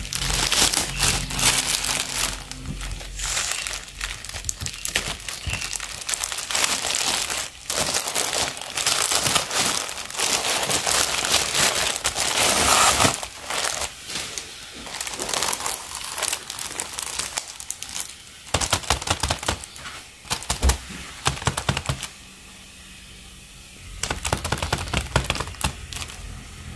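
Thin plastic mailer bag crinkling and rustling as it is pulled open and a cellophane-wrapped sticker box is drawn out. This is followed by sharper, scattered crackles and taps as the wrapped boxes are handled, with a short lull a few seconds before the end.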